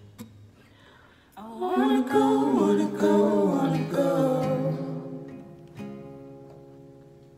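Small choir singing with acoustic guitar accompaniment. After a quiet first second the voices come in on a phrase, then settle on a held chord that fades away, with one guitar strum near the end.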